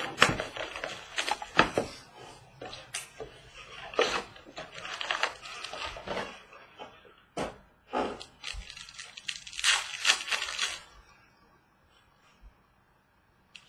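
A 2017 Certified football trading-card box torn open and its foil packs handled: a busy run of cardboard rips, wrapper crinkles and taps on the tabletop, dying away to near silence about two seconds before the end.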